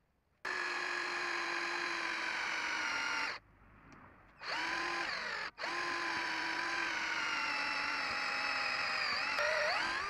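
Handheld electric drill boring a hole through a metal trigger piece. The motor whines steadily, stops for about a second after three seconds, then runs again with a brief cut-out. Near the end its pitch sags under the load of the bit cutting and recovers.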